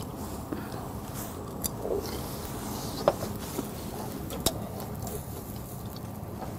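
Metal tongs clicking sharply against a wire grill grate a few times over a steady low background hiss; the clicks are brief and well spaced.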